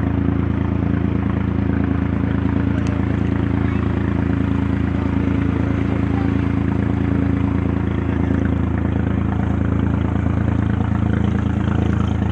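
Motorboat engine running at a steady pitch, with water rushing along the hull.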